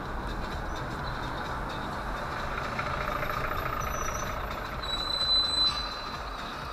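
City traffic and road noise heard from inside a slowly moving car, with a city bus alongside. About five seconds in comes a brief high squeal, the loudest moment.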